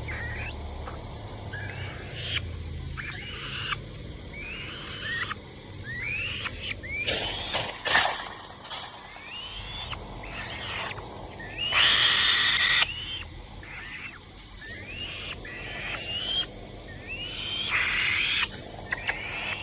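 A falcon giving short upward-sweeping calls over and over, roughly one a second. A loud burst of noise lasts about a second, twelve seconds in, with a shorter one near the end.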